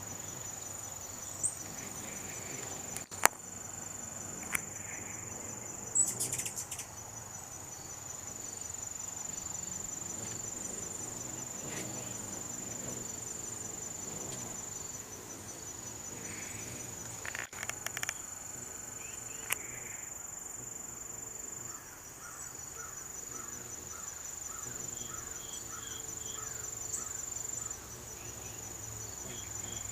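Steady, high-pitched pulsing chorus of insects, with a few sharp clicks over it.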